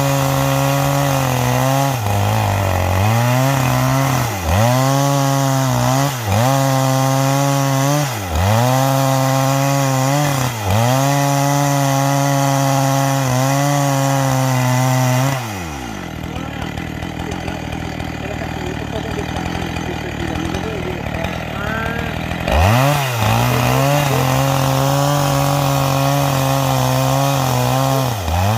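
Chainsaw at full throttle cutting yellow garapa wood with a square-ground chain, its engine pitch dipping and recovering about every two seconds as the chain bites. About halfway through the engine drops to idle for several seconds, then revs back up and resumes cutting.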